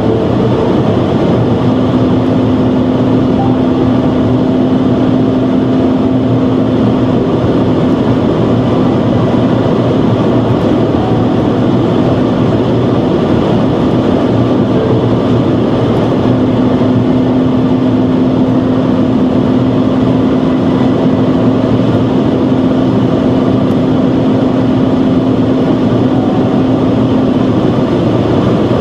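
BMW 130i's straight-six engine droning steadily at Autobahn speed, heard inside the cabin under a constant rush of wind and tyre noise. The engine's steady tone drops away for several seconds in the middle, then returns.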